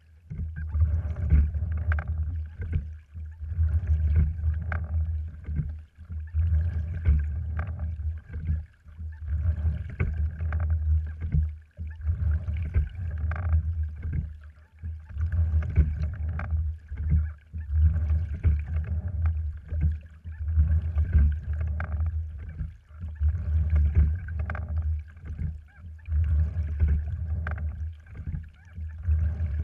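Sliding-seat rowing wherry under way: water rushing and slapping along the hull, and the oars working in their oarlocks with scattered knocks. The sound swells and eases about once every three seconds with each stroke, over a low rumble.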